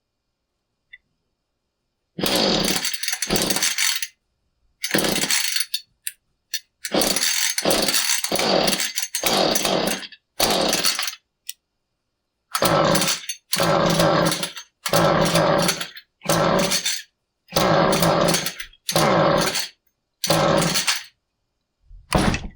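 Husqvarna 435 chainsaw being pull-started over and over: about fifteen quick pulls of the recoil starter, in bursts with short pauses, the engine turning over but never catching. It has spark, but the ignition coil is failing.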